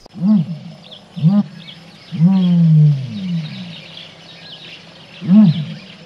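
Four low animal calls, each rising and falling in pitch. The third, about two seconds in, is longer and drawn out, and faint high chirping runs underneath.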